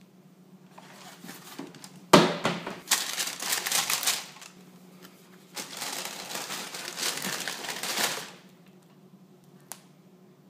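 Cardboard boot box being opened and tissue paper crinkling as a boot is lifted out and handled, in two stretches of rustling. A sharp knock about two seconds in, and a single click near the end.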